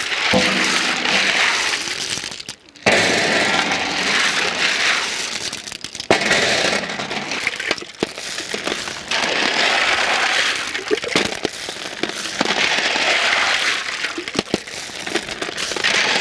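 Hands sloshing small black clams around in a metal basin of water, with water splashing and the shells clattering against one another. Later, handfuls of wet clam shells clatter and click as they are dropped onto a heap on a metal tray.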